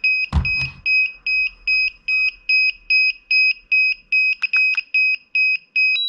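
DJI Mavic Air remote controller beeping: short, high beeps repeating evenly about two and a half times a second, its joystick calibration error warning, which the owner says is common and not a fault. A knock from the controller being handled just after the start.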